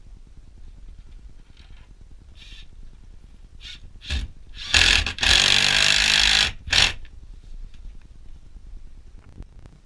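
Cordless drill driving a screw through a metal pipe strap into a wooden post: a few short trigger bursts about four seconds in, then a steady run of about a second and a half, then one last short burst.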